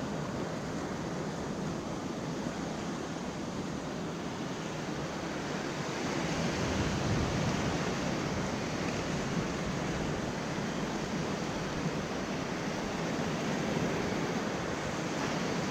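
Ocean surf washing against a rocky shoreline: a steady rush of waves that swells a little about six seconds in.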